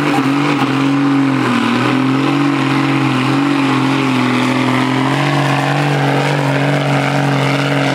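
Competition pulling tractor's engine running at high revs under load, its note held nearly steady with a brief dip in pitch about one and a half seconds in.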